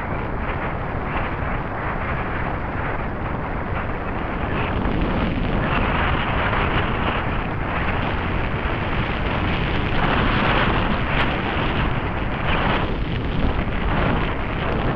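Wind buffeting a camera microphone on a moving rider, over the rumble of tyres rolling on a gravel track. The noise swells about six and ten seconds in.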